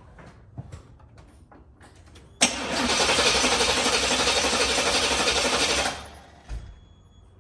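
Box Chevy's engine cranked by the starter for about three and a half seconds without catching, then released. The car has been sitting and the owner suspects it is short on gas, with the fuel pump also a possible cause.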